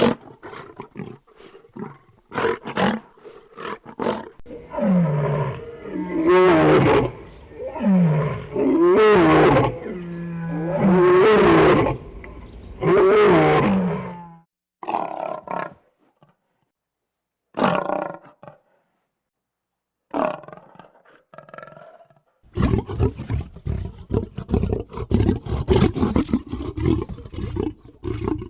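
Lion roaring: short grunts, then a run of four long, loud roars that bend in pitch, then scattered shorter calls, and a rough, continuous growling sound over the last several seconds.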